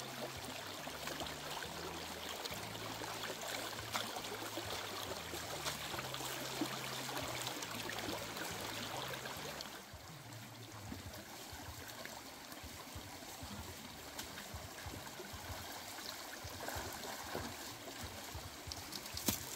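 Shallow stream running over rocks: a steady rush and trickle of water.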